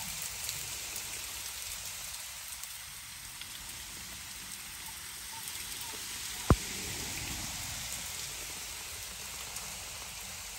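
Steady rain falling on a pool and rocks, with one sharp tap about six and a half seconds in.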